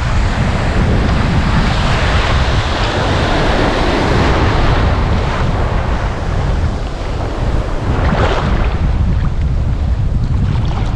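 Wind buffeting the action camera's microphone, over sea waves breaking and washing along the shore, the surf swelling louder a couple of times.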